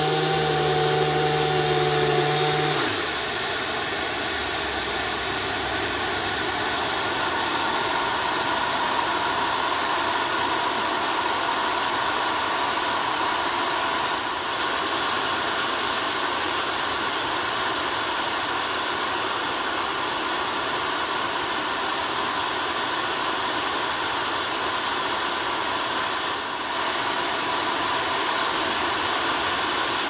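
Homemade wood-fired turbo burn barrel built around a 6.0 Powerstroke diesel turbocharger, running like a jet: a steady rushing roar with the turbo's whine climbing in pitch over the first several seconds and then holding high. A lower hum cuts out about three seconds in.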